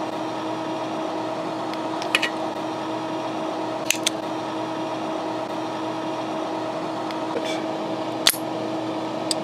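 Spring-loaded desoldering pump (solder sucker) being cocked and triggered: a few short, sharp clicks about two seconds in, around four seconds in, and a louder snap near the end. Under them runs a steady mechanical hum.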